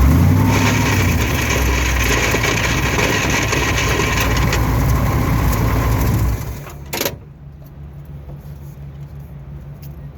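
Vehicle engine running with the grinding noise of a TH400 automatic transmission, a harsher high grind laid over it for the first few seconds. The engine shuts off about six seconds in, a single clunk follows about a second later, then only a faint low hum remains.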